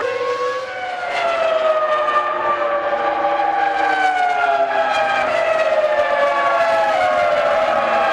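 Formula One car's V10 engine running at high revs, its pitch sliding slowly down over several seconds, with a further small drop near the end.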